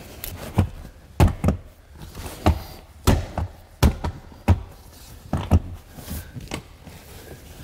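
About a dozen irregular dull thumps and knocks as a car's leather rear seat back and cushion are pushed and patted down into their mounting clips.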